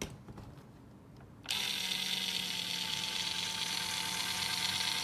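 Traxxas TRX-4 crawler's electric motor and transmission spinning up about a second and a half in and running steadily unloaded, with both driveshafts removed: a steady gear whine. A slight tick remains, which the owner traces to the transmission, dried out for lack of grease.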